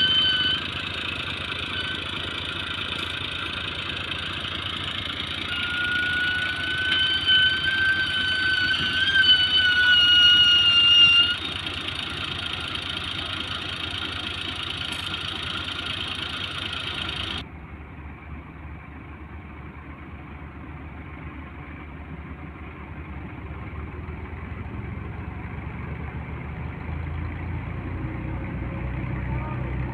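Tractor engines labouring under a heavy load while pulling a loaded sugarcane trailer, with a high-pitched squeal that wavers over the engine noise and is loudest for a few seconds before dying away. After an abrupt change, a quieter, lower engine sound builds up near the end.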